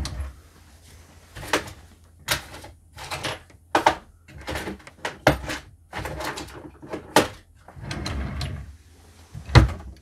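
Irregular clicks, knocks and rustles of small objects being handled and moved about, with a sharper knock near the end.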